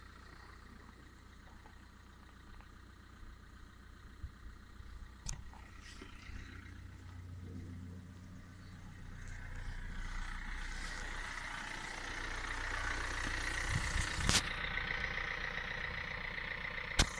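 Opel Astra 1.6 CDTI four-cylinder turbodiesel idling cold at about −1 °C: a steady low idle that grows louder and more clattery about halfway through, with a few sharp clicks, the loudest near the end.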